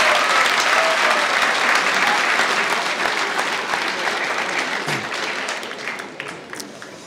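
Crowd applauding, loud at first and dying away gradually over several seconds.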